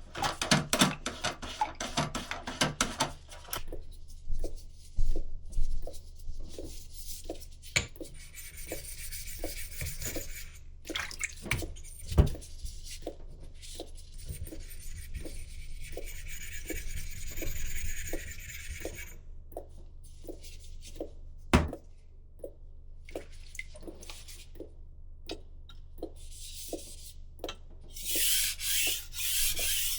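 Knife being sharpened on a sharpening stone: scraping and rubbing strokes of the blade on the stone, loudest near the end. Earlier there is a quick run of clicks, then light regular taps about twice a second with a faint hiss, and a few sharper knocks.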